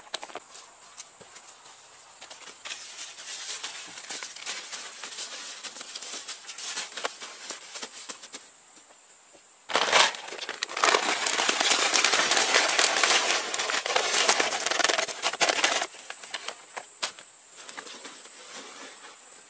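A plastic sack crinkling and rustling as it is carried and handled. About ten seconds in, a loud steady rush for some six seconds as soil is poured out of the sack into a leaf-lined bamboo box, then softer scraping as hands spread the soil.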